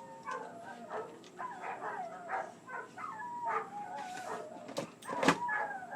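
A dog whining in short, wavering high-pitched whimpers, with one sharp knock about five seconds in.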